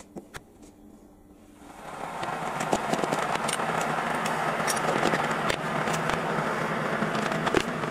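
Electric kettle heating water: after a couple of clicks near the start, a steady rushing hiss builds up about two seconds in and keeps going. Light taps and clinks of a spoon and coffee jar sound over it.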